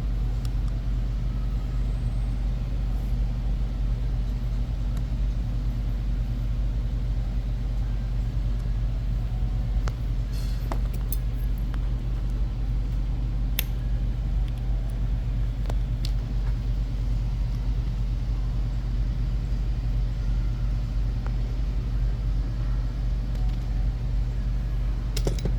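Steady low hum of background noise, with a few light clicks as the parts of an airsoft gearbox shell are handled and fitted together.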